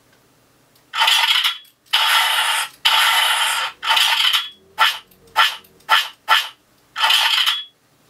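Electronic shot sound effects from the Arduino-driven MP3 board in a homemade E-11 blaster prop, played through its built-in speaker: nine shots. The first four each last under a second, then four come short and quick, then one more long one.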